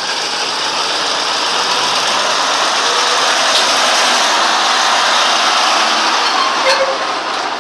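Nissan Diesel 340 tractor unit's diesel engine running as it hauls a tanker trailer through a tight turn right alongside, growing louder as the cab passes about four to five seconds in and easing off after. A sharp click comes near the end.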